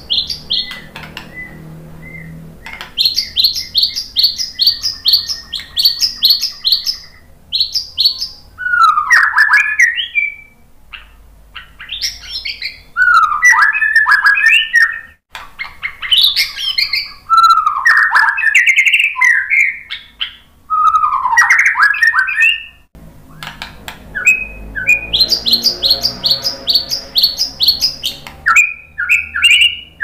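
A male white-rumped shama (murai batu) singing in full song. Runs of quick repeated high notes alternate with loud, varied, slurred whistled phrases that rise and fall in pitch.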